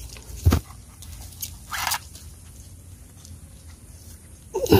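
A plant stalk gripped and snapped by a gloved hand while foraging vegetables: a dull knock about half a second in, then a short crisp snap a little before two seconds, with faint rustling of stems and leaves.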